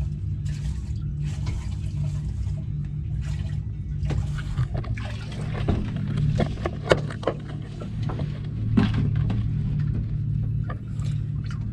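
Water sloshing in a metal cooking pot and being poured in from a plastic jerrycan as rice is rinsed by hand, with knocks and clinks of the pot from about four seconds in. Underneath is the steady low hum of the fishing boat's engine.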